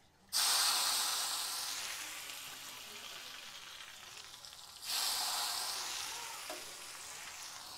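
Hot oil poured onto raw ground chilli sambal in a stone mortar, sizzling up suddenly and slowly dying away; a second pour about five seconds in sizzles up again and fades.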